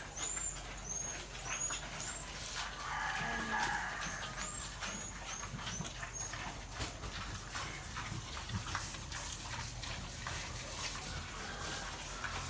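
Small birds peeping: high, short calls repeated about twice a second in two runs, one at the start and one around four to six seconds in. Many light clicks and taps run throughout, with a short lower call about three seconds in.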